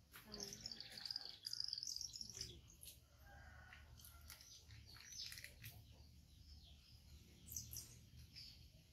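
Faint bird chirping: a quick, wavering high trill in the first couple of seconds, then scattered short chirps, with soft rustling throughout.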